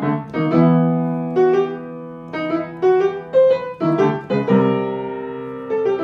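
Background piano music: single notes and chords struck one after another, each left to ring and fade.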